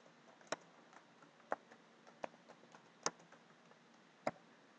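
Faint, slow typing on a computer keyboard: about five separate key clicks roughly a second apart, with a few lighter taps between them.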